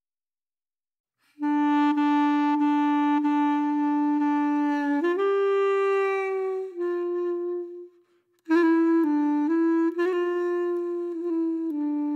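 Background music: a solo melody of long held notes that starts about a second in, breaks off briefly a little past halfway, then goes on with shorter notes.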